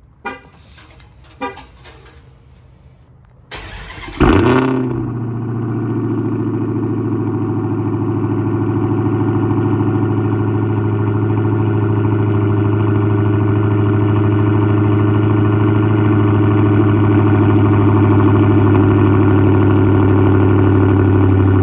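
Dodge Charger's V8 being remote cold-started: a few faint clicks, then about four seconds in the engine fires with a loud flare and settles into a steady cold idle through the exhaust.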